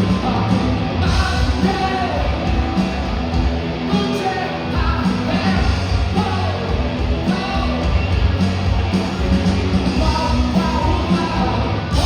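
Rock band playing live: loud electric band music with a singer's voice over it.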